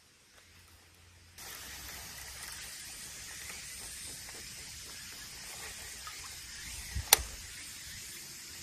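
Steady outdoor hiss that starts abruptly about a second and a half in, then one sharp loud click about seven seconds in, with a fainter click just before it.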